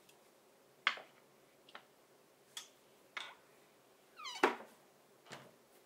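A series of light knocks and taps as objects are handled and set down on a glass-topped wooden vanity, about six in all. The loudest knock, a little past the middle, comes right after a short squeak that rises in pitch.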